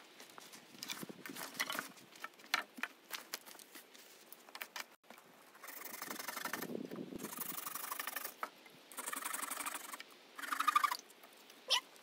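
Dry deadwood sticks being handled. Scattered clicks and knocks of wood come first, then several longer stretches of scraping and rustling, and a sharp knock near the end.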